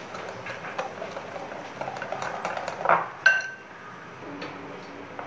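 Gram-flour batter being mixed by hand in a glass bowl: wet squelching with small taps against the glass, then a single sharp clink a little over three seconds in that leaves the glass bowl ringing briefly.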